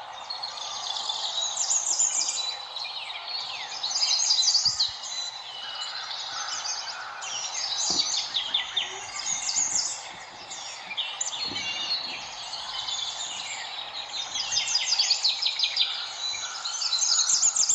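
A dense chorus of many small birds chirping and twittering, with short quick high calls overlapping over a steady background hiss.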